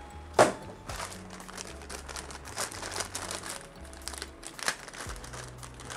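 Plastic packaging crinkling as spare power-supply cables are handled, with one sharp click about half a second in.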